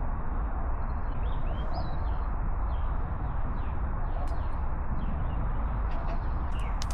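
Small birds chirping, short quick calls that glide up and down, over a steady, loud background noise, with a few sharp clicks near the end.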